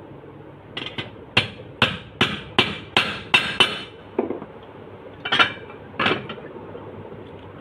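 Hammer blows on the steel parts of a motorcycle crankshaft being assembled, with sharp metallic ringing strikes. It starts with two light taps, then seven hard blows at about three a second, then three more strikes spaced out over the next few seconds.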